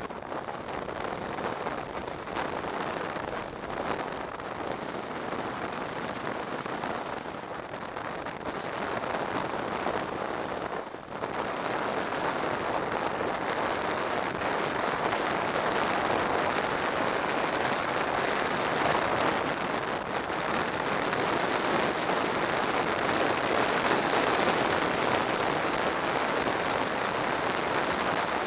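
Wind rushing over the microphone of a motorcycle-mounted camera while riding at speed, with motorcycle and road noise mixed in. It is steady, dips briefly about eleven seconds in, then comes back louder.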